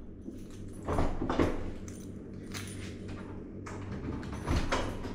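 Handling noise: a few knocks and clicks, with rustling in between, as objects are moved about by hand.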